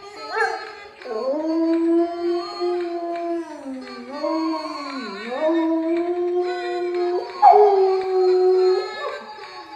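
A dog howling: long drawn-out notes that hold steady, sag and waver in pitch around the middle, then start again louder and a little higher near the end.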